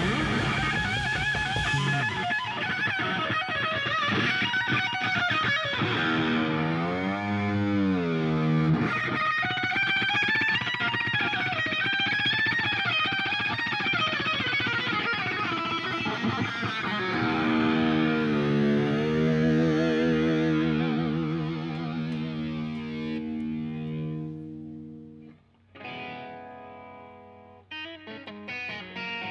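Distorted electric guitar solo from a PRS-style guitar played through an EVH 5150 amplifier, with wide string bends and vibrato on long held notes. The drums and cymbals drop out about two seconds in, leaving the guitar alone. Near the end it fades, stops briefly, then plays a few separate notes.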